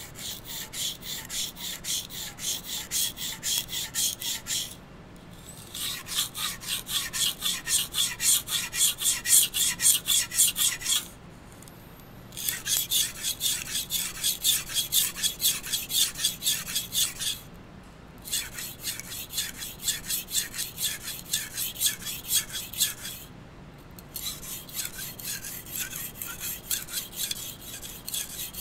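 Kitchen knife blade scraped back and forth across a #1000/#4000 combination whetstone, making quick rasping strokes in runs of several seconds with brief pauses between them.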